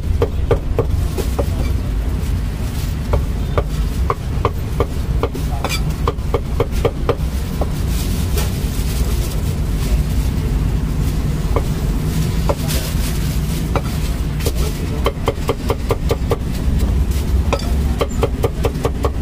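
Heavy meat cleaver chopping roast meat on a thick round wooden chopping block: quick runs of sharp knocks with short pauses between, over a steady low rumble.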